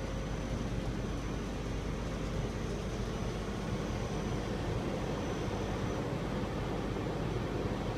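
Steady mechanical hum and rumble of a Liebherr MK88 mobile construction crane running, with a faint thin high whine that stops about six seconds in.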